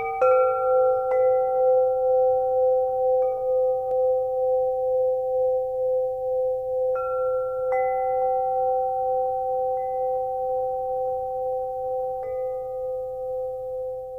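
Struck meditation bells ringing with a long sustain: two steady tones that waver slowly in loudness, struck again several times, with a few faint light tinkles in the first few seconds. The ringing slowly fades near the end.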